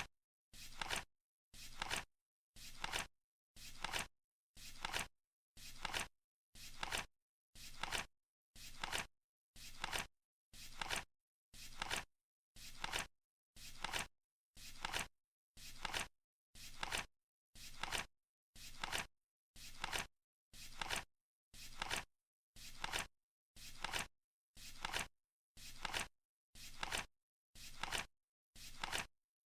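Flip clock's digit flaps flipping over once a second, each a short flick, with dead silence between.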